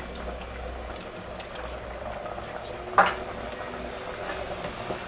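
Tomato sauce simmering in a stainless steel pot, bubbling and popping steadily, with one sharp knock about three seconds in.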